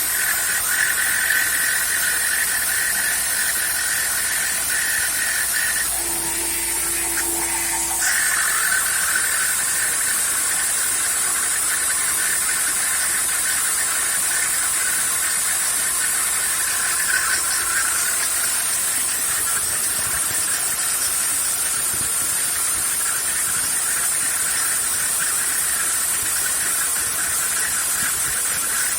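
CNC router spindle running with a high steady whine while its end mill cuts, the cutting adding a shrill, rough band of tones. About six seconds in, the cutting tone drops out for some two seconds and a lower steady tone sounds, then the cutting resumes.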